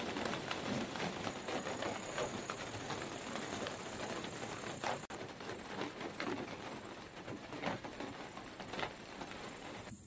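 Light drizzle pattering steadily, a dense run of small drop ticks.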